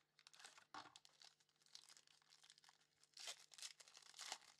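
Foil trading card pack being torn open and crinkled by hand, with a little handling of the cardboard card box. It is quiet rustling and crinkling in several short bursts, the strongest a little past three seconds in and again near the end.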